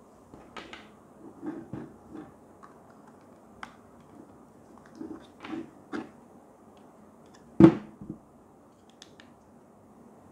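Small black plastic charging accessories, a multi-port connector holder with its adapters and cable, handled on a table: scattered light clicks and taps, with one louder knock about seven and a half seconds in.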